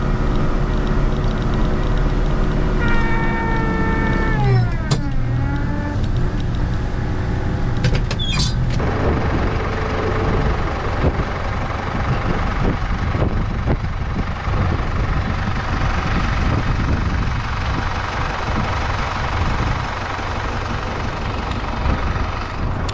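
Loader's engine running under load while pushing snow, its pitch dropping a few seconds in, with two short sharp noises around five and eight seconds in.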